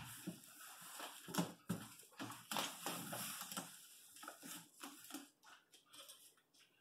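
Aluminum foil tape being pulled off its roll, its paper backing peeled away, and the tape rubbed down along the top seam of a cardboard box: irregular rustling, crinkling and scraping that thins out near the end.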